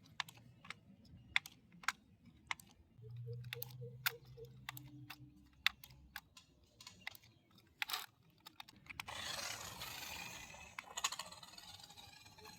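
Scattered light clicks and taps of small parts being handled during a DIY build. A brief low hum comes about three seconds in, and a rustling hiss near the end.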